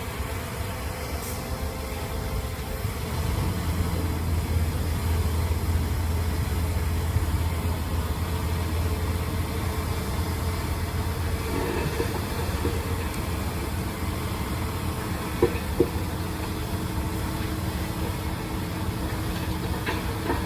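Heavy earthmoving machine's diesel engine running steadily with a low rumble that grows a little louder about four seconds in. Two sharp knocks come close together about three quarters of the way through.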